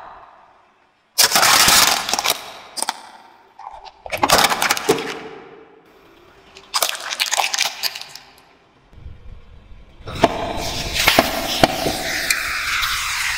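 A car tyre rolls over and crushes small plastic toys, making three separate bursts of crunching and cracking with quiet gaps between them. From about ten seconds in, aerosol cans burst under the tyre with a sustained spraying hiss, cracks and a low rumble.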